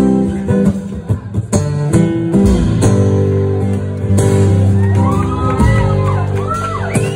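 A country-pop song playing over a sound system, a stretch without lead vocals carried by strummed acoustic guitar. About five seconds in, a voice whoops over the music, rising and falling in pitch.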